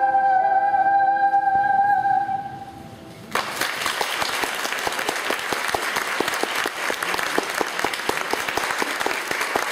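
A young girl's voice holding a long final high sung note, which fades out about two seconds in. After a short lull, audience applause breaks out suddenly and goes on steadily.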